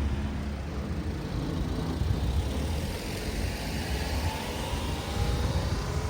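Road traffic at an intersection: a vehicle running past with a steady low rumble, its engine note rising faintly in the second half.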